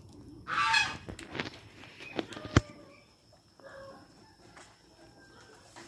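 Chickens clucking and calling, with a short loud call about half a second in and softer calls later. A sharp knock about two and a half seconds in is the loudest sound.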